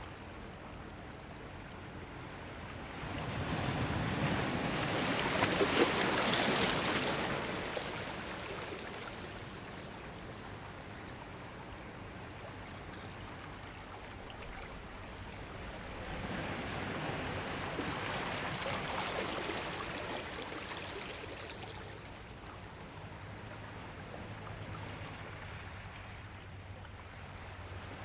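Ocean waves breaking and washing in twice. Each comes as a swelling rush of surf lasting about five seconds, the first about three seconds in and the second past the middle, with a softer steady wash of water between them.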